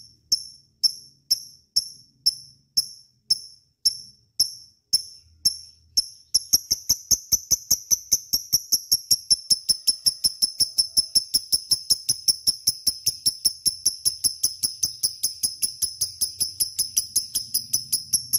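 Lovebird chirping: sharp, high-pitched chirps in a very even rhythm, about one and a half a second, speeding up to about four a second some six seconds in.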